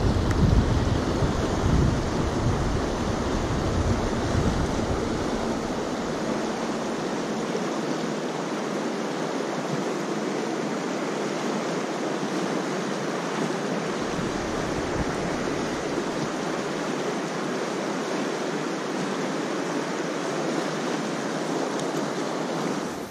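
Steady rush of river water running over riffles, with gusts of wind buffeting the microphone in the first several seconds and again briefly about halfway through.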